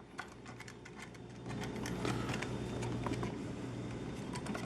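Small clicks and scraping from a coax cable's connector being fastened onto the back of a plastic coax wall plate by hand. A low steady hum comes in about a second and a half in.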